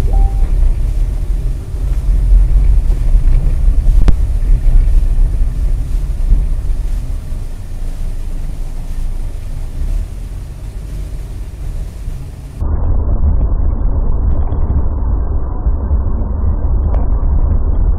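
Steady low rumble of a car driving, engine and tyre noise picked up by a dash camera inside the car. About twelve and a half seconds in the sound turns suddenly duller and more muffled, and the low rumble goes on.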